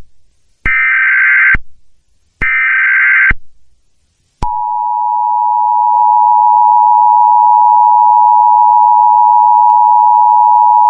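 Emergency Alert System header: two harsh, buzzy bursts of digital SAME data, each about a second long with a second's gap between. About four seconds in comes the steady, loud two-tone EAS attention signal, which holds without a break.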